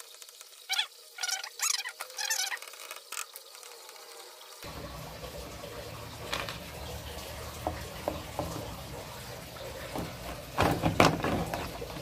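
Plastic clicks and knocks from handling the opened control-panel housing of a Sanyo top-loading washing machine, with a cluster of louder knocks near the end. A steady rushing noise comes in about halfway through.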